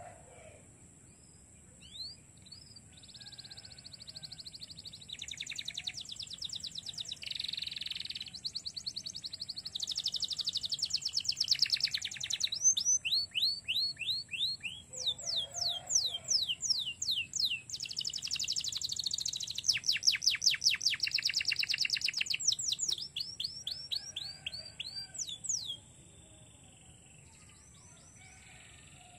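Domestic canary singing one long, varied song of fast rolling trills and series of quick rising whistled notes. It starts about two seconds in and stops a few seconds before the end. A faint steady high-pitched hum runs behind it.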